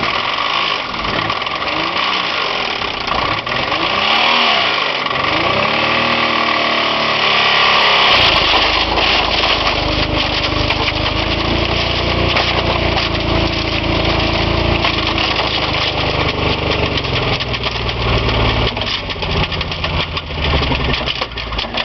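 Buick LeSabre engine revved up and down several times, then held at high revs with a harsh, dense clatter as it is run to destruction. Its noise falls away abruptly right at the end as the engine gives out.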